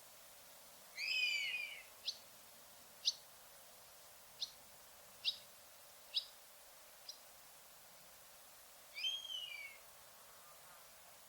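Common buzzard giving two drawn-out, down-slurred mewing calls, one about a second in and one near the end. Between them comes a series of six short, sharp high notes, roughly one a second.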